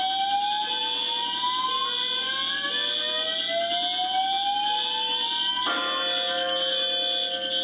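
A composed soundtrack of layered electronic fire-alarm tones: a steady shrill cluster of high alarm tones, with several tones slowly sweeping upward and a lower tone beeping on and off. A little over halfway through, the sweeps cut off suddenly and steady lower tones hold under the shrill ones.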